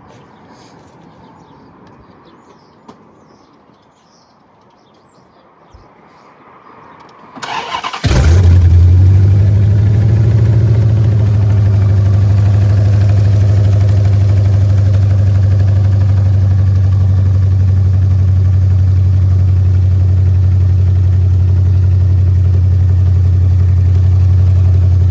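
Car engine cranked by the starter about seven seconds in, catching within a second, flaring briefly, then settling into a loud steady idle. The headers have just been tightened, which the owner says has cured the exhaust leak.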